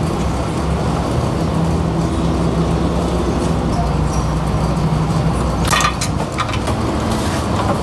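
Steady low mechanical hum from the workshop, with a few sharp metal clinks a little before six seconds in as the car's AC condenser is worked loose by hand.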